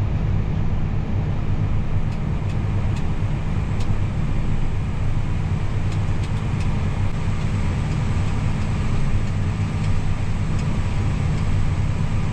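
Tractor engine running steadily while pulling a grain cart, a deep even drone with a few faint ticks over it.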